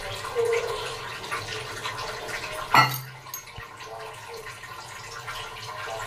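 Gas stove burner hissing steadily under an empty kadai that is heating up, with one sharp knock about three seconds in.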